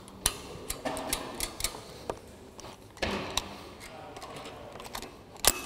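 Metal karabiners and rope-access devices on a harness clicking and clinking as the screwgates are checked and done up, with irregular sharp clicks and soft rope and harness rustling in between.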